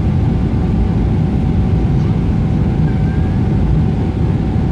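Steady cabin roar inside a Boeing 777-300ER on final approach, engines and airflow with the landing gear extended, carrying a faint steady whine.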